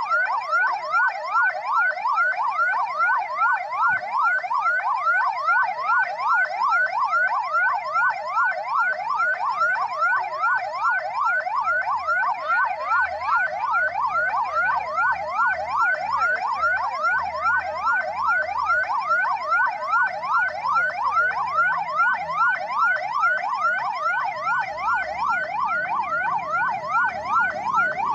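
Ambulance electronic siren on a fast yelp, its pitch sweeping up and down about three times a second without a break.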